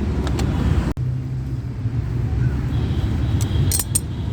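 Steady low rumble of traffic and workshop background, with a few light metallic clinks near the end as tools work on the motorcycle's side cover.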